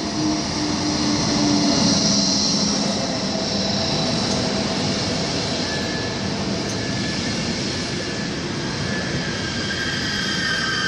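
Electric-locomotive-hauled Intercity train coaches rolling slowly past along a platform. A steady rumble of wheels on the rails carries high-pitched wheel squeal, which grows stronger toward the end.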